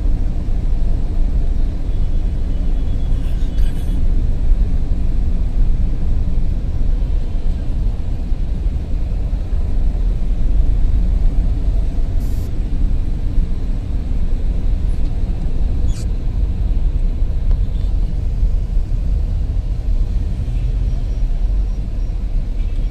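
Steady low rumble of road and engine noise heard from inside a moving car driving through city traffic, with a few faint ticks.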